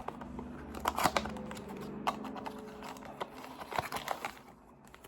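Toy figure packaging being opened and handled: scattered rustles, scrapes and clicks, with the loudest clatter about a second in, over a faint steady hum.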